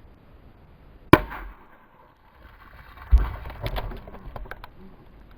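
A single handgun shot about a second in, a sharp crack with a short echo, followed about two seconds later by a second loud low thump and a scatter of small clicks.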